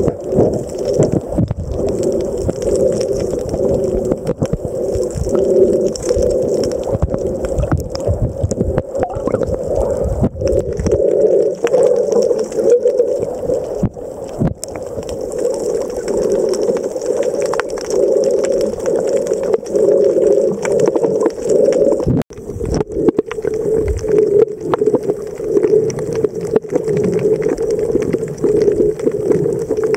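Underwater sound picked up by a submerged camera: a steady muffled rush of moving water with fine crackling. Heavier low sloshing and thumping fade out about a third of the way in, and there is a momentary break about three quarters of the way through.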